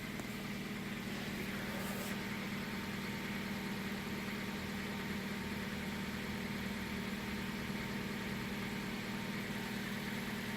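Third-generation Kia Rio petrol engine idling steadily with a diesel-like clatter. The owner says this knock is worst on a cold engine and fades as it warms up.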